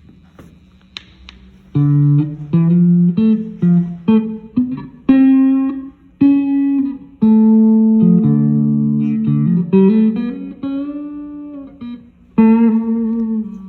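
Handmade cigar box guitar tuned like a baritone ukulele, needing tuning, being plucked: a few faint handling clicks, then a halting run of single notes and chords starting about two seconds in, with a sliding note about two-thirds of the way through and a fresh strum near the end.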